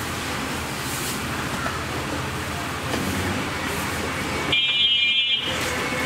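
Steady outdoor background noise. About four and a half seconds in, a high-pitched steady tone sounds for just under a second.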